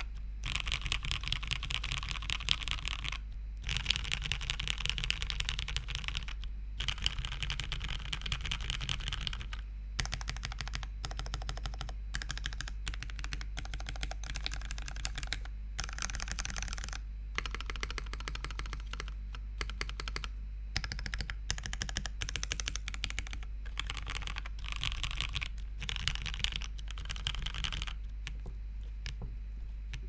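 Typing on a Prophet mechanical keyboard fitted with lubed milky-top Gateron Yellow linear switches on a polypropylene plate: fast, continuous keystrokes with brief pauses every few seconds.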